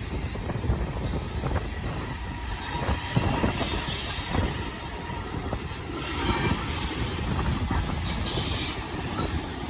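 A BNSF double-stack intermodal freight train rolling past with a steady rumble of cars. High-pitched wheel squeal rises about three and a half seconds in and again near the end as the wheels grind around the curve.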